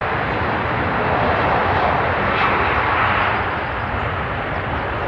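Engine noise of a Thomsonfly jet airliner, a loud, steady rushing noise with no distinct pitch. One engine of the airliner has failed and is burning.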